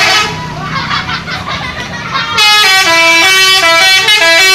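A bus's telolet horn, a multi-tone musical horn. It gives a short blast at the start, then from about halfway plays a quick tune of stepped notes, loud.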